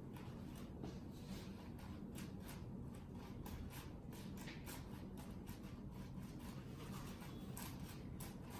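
Plastic layers of a 7x7 Rubik's Cube being turned by hand: quick, irregular clicks, several a second, over a steady low hum.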